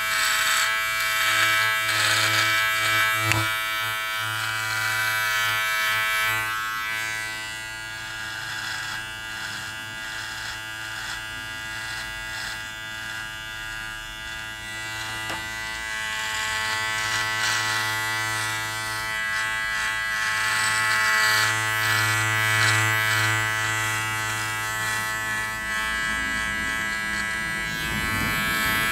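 Powertec TR-758 electric beard and neck trimmer running with a steady buzz while trimming a beard, louder for the first several seconds and again past the middle.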